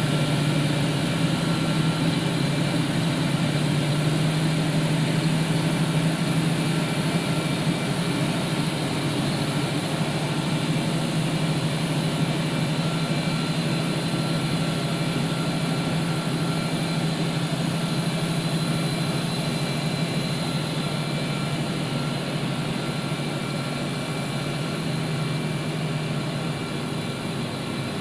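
Boeing 737-200 jet running steadily: a low hum under several steady high-pitched whines, the hum easing slightly near the end.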